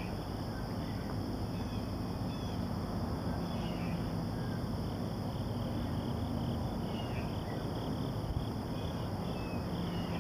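Outdoor ambience: a steady high insect drone with scattered short bird chirps and a low steady hum underneath.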